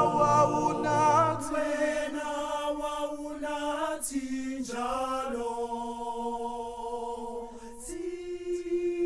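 Male gospel vocal group singing a cappella in close harmony, holding long chords. The low bass part stops about a second and a half in, and the chord changes near the end.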